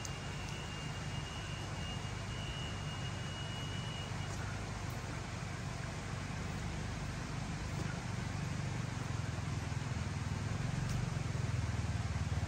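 A steady low engine drone, growing a little louder near the end.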